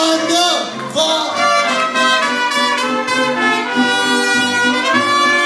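Live mariachi band playing an instrumental passage, trumpets carrying the melody over violin and guitars in sustained notes.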